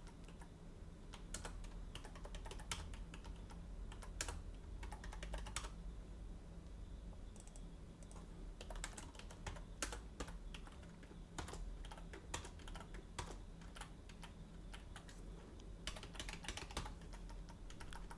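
Computer keyboard typing: faint, irregular key clicks in quick runs with short pauses.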